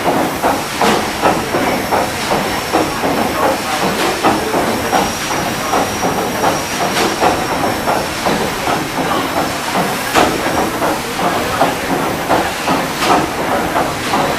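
Paddle steamer Waverley's steam engine running: a quick, regular beat over continuous steam hiss, with a faint high whine through most of it.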